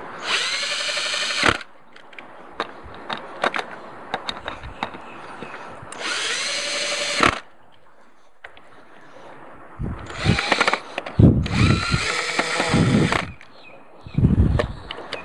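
Cordless drill driving screws into a boat's bow-mounted anchor bracket in several short runs. Each run starts with a rising whine as the motor spins up. The later runs are heavier and lower-pitched as the screws seat, with small clicks from handling between runs.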